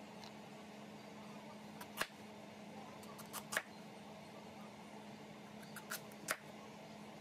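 A cleaver slicing through a peeled squash, its blade knocking sharply on the cutting board about five times at uneven intervals, over a steady low hum.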